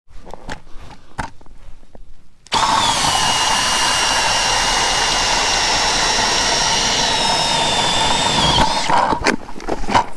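Milwaukee M18 Fuel cordless drill spinning an ice auger to bore a hole through lake ice. A few handling clicks come first; about two and a half seconds in, the drill starts and runs steadily with a whine for about six seconds, then stops, followed by more clicks.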